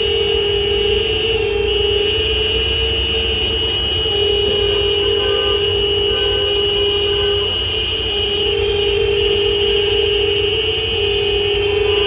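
Vehicle horns, likely from the trucks, sounding in long, overlapping sustained blasts with only brief breaks every few seconds, over a low rumble.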